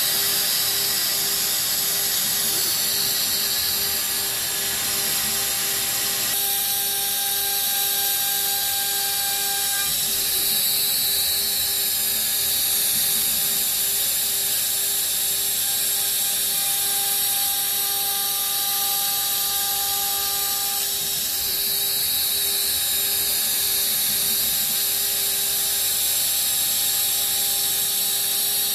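CNC router spindle running steadily while its end mill cuts a rabbet in MDF, a loud even high whine and hiss. Extra whining tones come and go twice as the machine moves through the cut.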